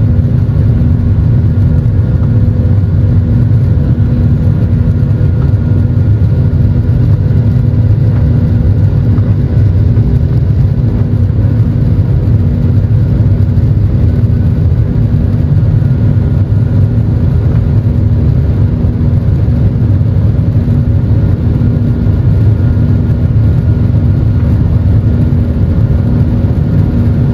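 Steady jet-engine noise and rushing airflow heard inside an airliner cabin at a window seat over the wing, while the plane climbs after takeoff. It is a deep, even rumble with a few faint steady humming tones above it.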